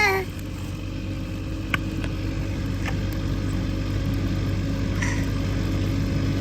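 Kubota M7060D tractor's four-cylinder diesel engine running at a steady speed, a constant low drone with a couple of faint clicks.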